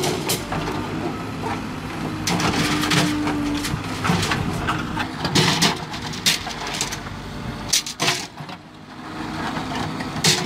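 A JCB 3CX backhoe loader running while its backhoe bucket pushes and drags steel rebar apart, with repeated sharp metallic clanks and rattles as the bars strike the bucket and each other. The machine sound eases briefly about eight seconds in.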